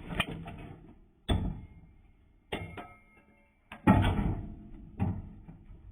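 Metal brake parts, the caliper and rotor, knocking and clunking while being handled and fitted at the hub. There are about five separate clunks roughly a second apart, and one near the middle gives a brief metallic ring.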